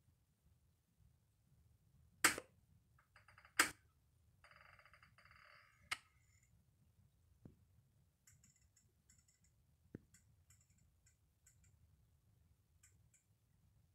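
Quiet room with a few sharp clicks: two loud ones about a second and a half apart, a brief hiss just after them, another click, then faint scattered ticks.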